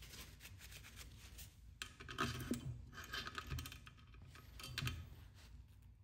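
Faint rustling and rubbing of a shop towel wiping the smoke machine's fluid dipstick clean, with scattered small handling clicks.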